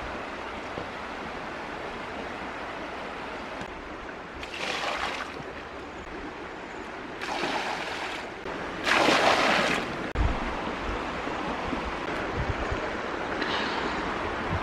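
Flowing river water rushing steadily, with three louder splashing gushes about 4.5, 7.5 and 9 seconds in, the last the loudest: water tipped from a metal pan into a small cement-lined pond.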